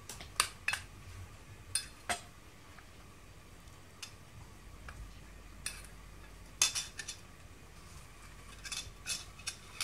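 Metal spoon clinking against a bowl while mixing raw potato strips, in irregular sharp taps, clustered at the start, around seven seconds in and near the end, with quiet pauses between.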